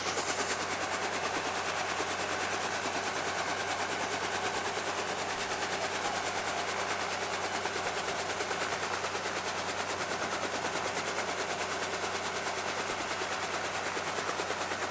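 Small helicopter running with its rotor turning, a steady rapid beating of the blades over the engine.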